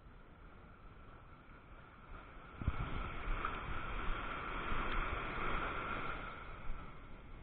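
A small wave breaking and washing up the beach close to the microphone: a sudden rush of surf about two and a half seconds in that swells and then fades near the end.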